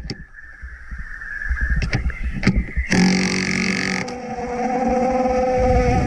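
Nemo submersible impact wrench hammering in one burst of about a second, loosening a bolt, with a few clicks before it. A steady hum follows and grows louder toward the end.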